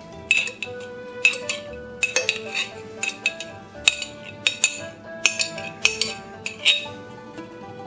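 Table knife clinking against a ceramic plate while strawberry jam is spread on a crepe: a dozen or so sharp clinks at uneven intervals. Background music with held notes plays underneath.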